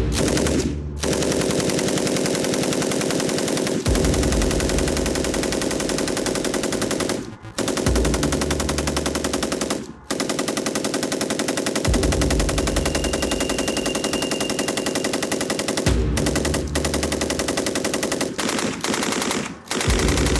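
Sarsılmaz SAR 762 MT 7.62 mm machine gun firing long bursts of automatic fire, with a few short breaks between bursts.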